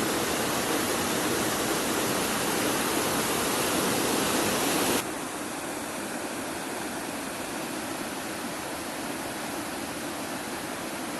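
Waterfall water rushing steadily. About five seconds in the sound cuts abruptly to a quieter, steady rush of water.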